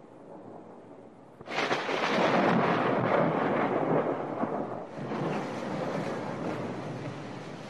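Thunder: a sudden loud crack about a second and a half in, then a rolling rumble that swells again around five seconds and slowly fades.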